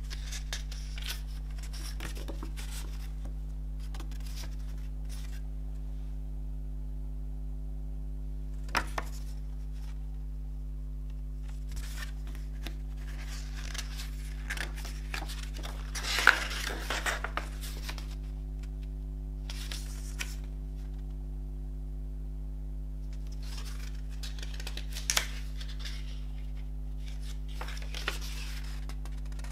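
Paper lyric booklet of a CD being unfolded and its pages turned by hand: soft rustling broken by crisp paper snaps, the loudest a flurry about halfway through. A steady low electrical hum runs underneath.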